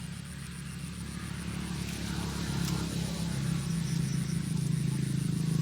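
A motor engine droning steadily and growing louder as it draws nearer.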